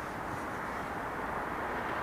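Steady low rumbling background noise outdoors, even throughout with no distinct events.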